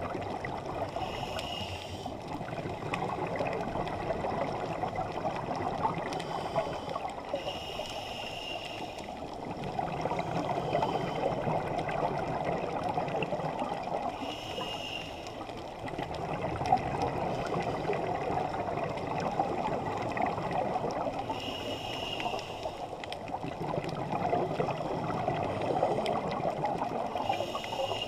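Scuba diver breathing through a regulator underwater: five short hissing inhales with a faint whistle, about every six or seven seconds, each followed by a long rumble of exhaled bubbles.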